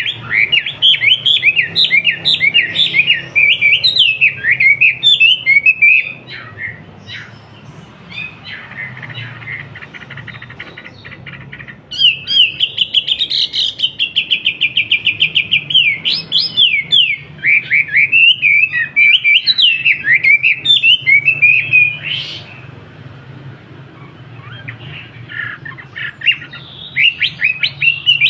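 Wambi bird singing in full voice: rapid strings of sharp, high chirping notes and a fast even trill, in loud spells broken by quieter chatter.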